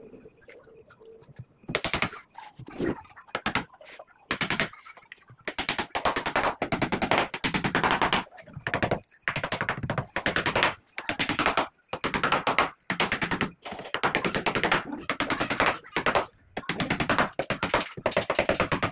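Corded hammer drill run in short repeated bursts, a fast hammering rattle that starts and stops about once a second as holes are drilled through the door frame into the wall.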